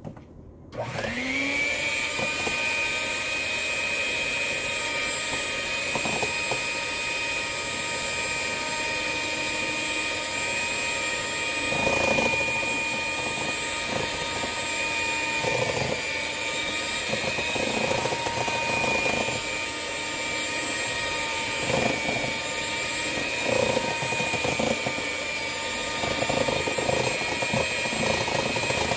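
Electric hand mixer spinning up about a second in and then running steadily, its beaters whipping butter and eggs in a stainless steel bowl and now and then knocking against its side.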